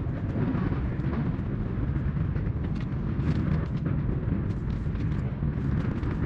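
Steady low rumble of wind buffeting the microphone, with scattered faint clicks and crackles.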